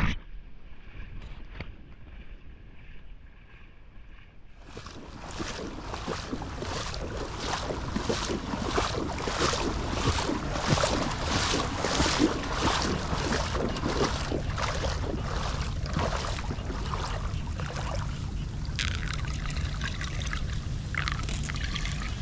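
Footsteps sloshing through shallow floodwater, about two steps a second, starting about four seconds in, with wind rumbling on the microphone.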